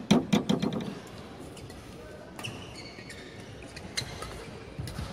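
Badminton rally in a large hall: a quick burst of loud sharp knocks at the very start, then short squeaks of court shoes and single sharp racket strikes on the shuttlecock about four and five seconds in.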